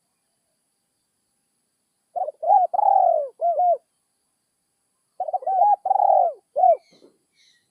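Spotted dove cooing: two phrases of several rising-and-falling coo notes, about a second and a half each, a little over a second apart.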